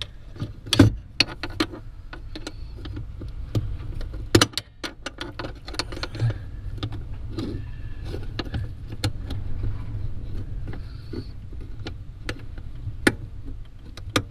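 Irregular clicks, knocks and metallic rattles of hands working the clutch pedal linkage under a Land Rover Discovery's dash, freeing the master cylinder pushrod from the back of the pedal, over a steady low hum.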